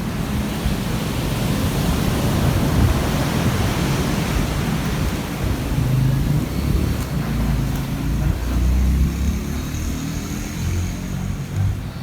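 Ocean surf washing onto the beach, a steady rushing noise, with wind rumbling on the microphone.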